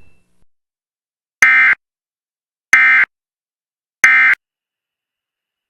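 Emergency Alert System end-of-message signal: three short, loud bursts of SAME digital data tones, evenly spaced about a second and a third apart, marking the end of the warning broadcast.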